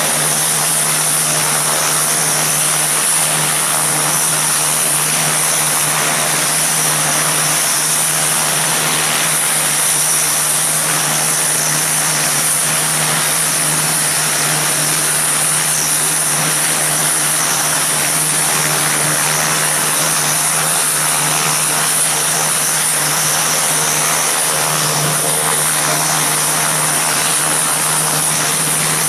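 Antonov An-26 twin-turboprop transport running its engines on the ground: a steady propeller drone with a high turbine whine over it.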